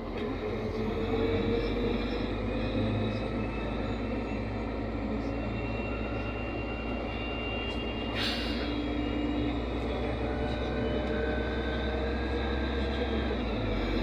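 Cabin noise of a NefAZ 5299 city bus under way: its Cummins ISBe diesel engine and drivetrain droning steadily with tyre and road noise, a whine rising in pitch over the first few seconds as the bus picks up speed. A short hiss about eight seconds in.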